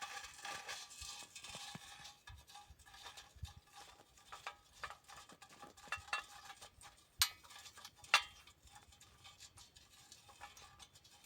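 Faint, scattered small clicks and knocks, with two sharper clicks about seven and eight seconds in.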